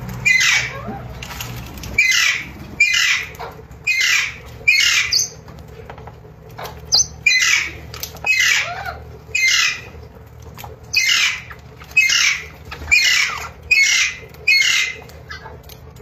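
Alexandrine parakeets calling: loud, harsh squawks, each sliding down in pitch, repeated about once a second in runs of four or five with short pauses between.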